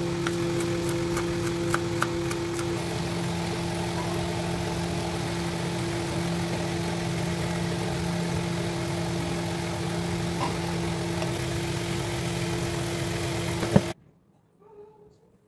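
A steady motor hum, with a few light knife taps on a cutting surface in the first two seconds. The hum cuts off suddenly near the end.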